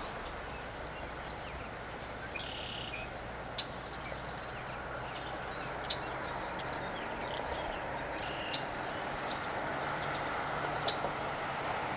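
Outdoor ambience: a steady rushing noise that grows slightly louder, with scattered short, high bird chirps and calls over it.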